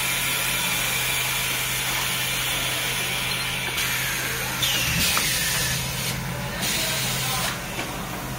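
Compression packing machine for pillows and quilts running: a steady low hum under a constant hiss. The hiss shifts about four seconds in and drops back twice near the end as the press works.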